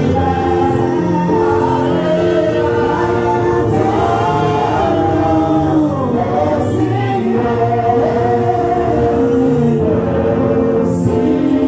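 A congregation singing a hymn together: many voices holding long notes.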